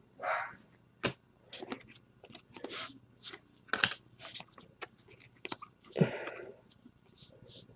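Stack of glossy trading cards being handled and sorted by hand: irregular soft clicks, taps and scrapes as cards are slid and flicked against one another, with a longer soft rustle just after the start and another about six seconds in.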